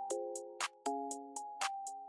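Background music: light electronic track with sustained chords and a steady ticking hi-hat beat.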